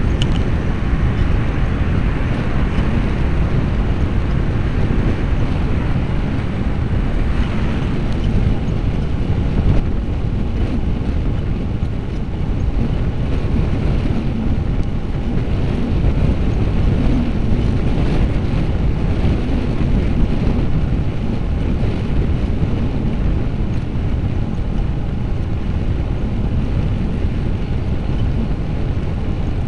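Steady low rumble of wind buffeting the microphone of a Manta MM355 action camera on a moving bicycle.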